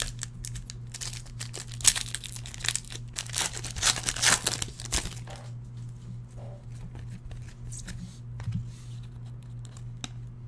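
Foil wrapper of a football trading-card pack being torn open and crinkled, most intensely from about a second in to about five seconds in, followed by quieter handling of the cards.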